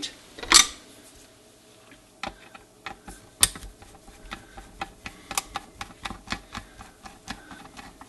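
Screwdriver working loose the tight screws that hold the clock motor to a NuTone chime base's circuit board: one sharp click about half a second in, then a run of small irregular metallic clicks and ticks from about two seconds in, coming quicker toward the end.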